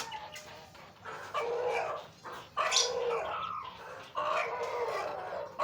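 An animal calling three times, each call pitched and lasting about a second.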